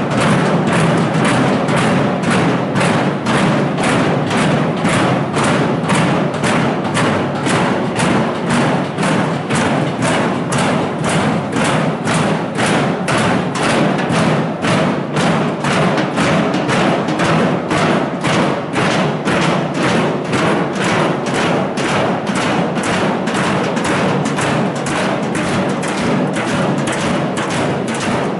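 Protesters banging out a steady rhythm, about two loud strikes a second, with no break.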